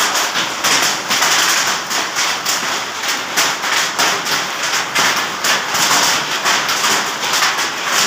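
Hail pelting down hard: a dense, continuous clatter of many quick irregular hits over a steady hiss.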